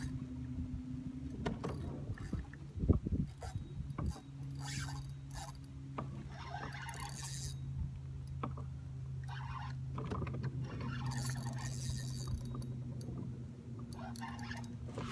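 Boat motor running steadily at trolling speed, a low even hum, with a knock about three seconds in and several short hissy bursts over it.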